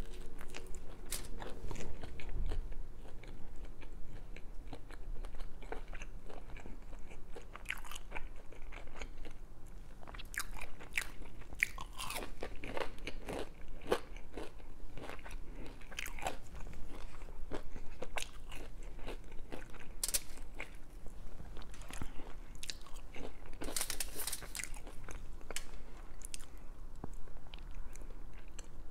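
Close-miked biting and chewing of a breaded vegan chicken tender: a steady run of small, irregular crunches.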